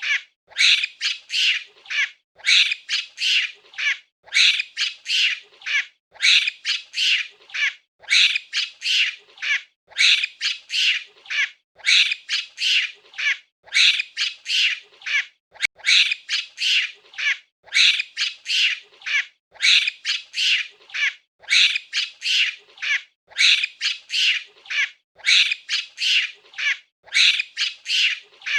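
Monkey calls: groups of short, high-pitched screeching chatter, several calls per group, repeating in an even cycle about every two seconds.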